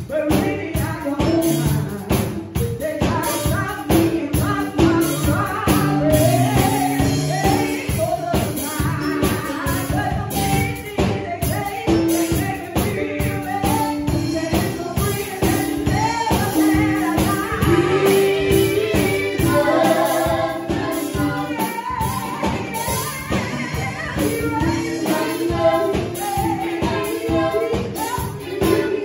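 Gospel music: a sung melody over a steady beat.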